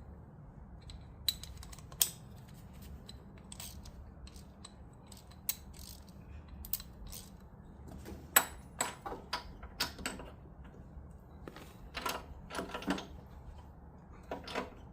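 Hand socket ratchet clicking in short runs, mixed with scattered metal tool clicks and light knocks. The clicks are sparse at first and come in quicker runs from about eight seconds in and again about four seconds later.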